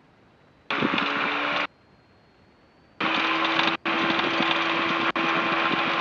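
Aviation radio or intercom audio cutting in and out with no words: an open microphone carries engine hum and hiss. There is a short burst of about a second, then a longer one starting about three seconds in, which drops out briefly twice.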